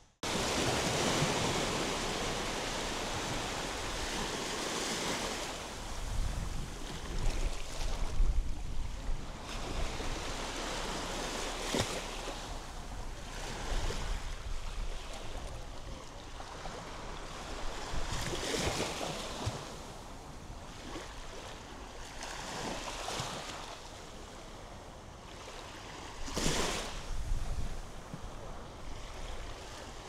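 Small waves breaking and washing up on a sandy beach, surging every few seconds, with wind rumbling on the microphone at times.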